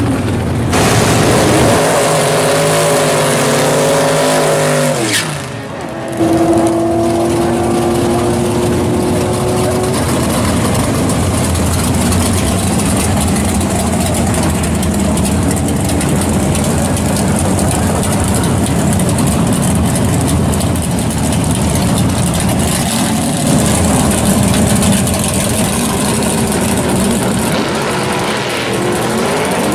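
Pontiac GTO Pro Stock drag car's engine running loudly and steadily at the drag strip with a dense, heavy rumble. Before that, in the first few seconds, another engine's pitch wavers and then drops just before a sudden cut.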